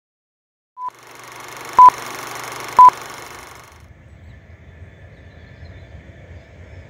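Three electronic beeps at one steady high pitch, about a second apart over a hiss: a short one, then two very loud ones. The hiss cuts off, leaving a quieter outdoor background with a low rumble.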